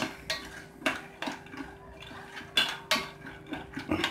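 Wooden spoon stirring raw peanuts in salted water in a stainless steel pot: irregular clicks and knocks of the spoon and nuts against the pot.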